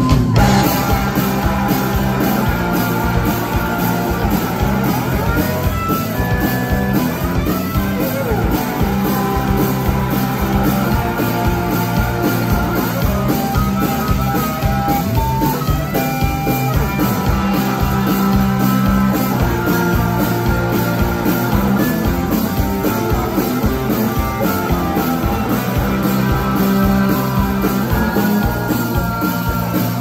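Live rock band playing an up-tempo boogie: electric guitars over bass and a steady drum beat.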